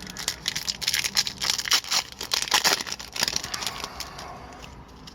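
A hockey card pack's wrapper being torn open and crinkled by hand: a dense run of rustling and crackling that eases off after about four seconds.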